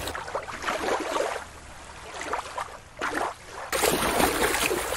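Water splashing in irregular bursts as a plastic toy orca is swished and dunked by hand in shallow water, easing off in the middle and picking up again near the end.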